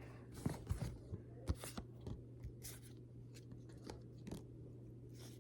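Scattered soft crinkles, rustles and clicks of a Pokémon card booster pack and its cards being handled, thickest in the first two seconds and again around four seconds in, over a low steady hum.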